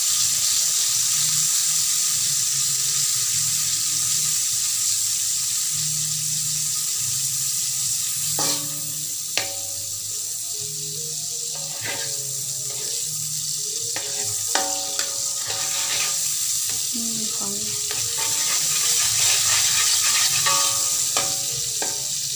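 Melted margarine sizzling in a wok as a metal spatula stirs it. From about a third of the way in, the spatula scrapes and taps sharply against the wok.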